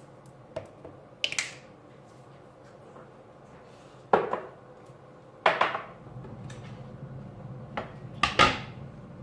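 Cookware clattering: a pan and utensils knocked about on the stove, several sharp metallic knocks with short ringing tails, loudest about four, five and a half and eight seconds in. A low steady hum starts about halfway through.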